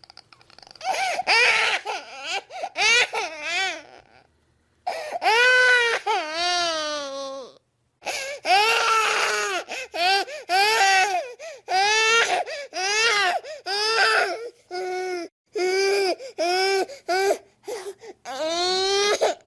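Baby crying: a run of high-pitched wailing cries, some short and some stretched over a second or two, broken by several sudden cuts.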